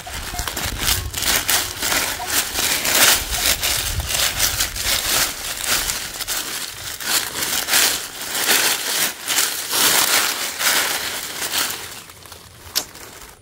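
Dry fallen leaves and soil crunching and rustling as a hand digging tool is worked through leaf litter in quick, irregular scrapes. It quiets near the end, with a single sharp click.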